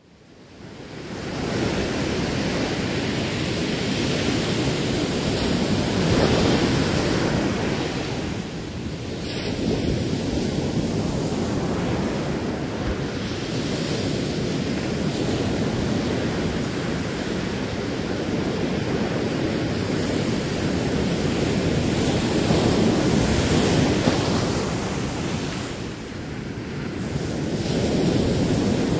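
Ocean surf with wind buffeting the microphone: a steady rushing that fades in over the first second or two, then swells and eases every several seconds.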